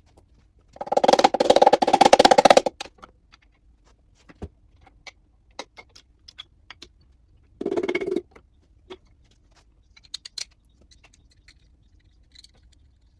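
Hand ratchet clicking in a fast run for about two seconds, then a shorter run about eight seconds in. Scattered light metal clicks and knocks from tools and engine parts come between the runs.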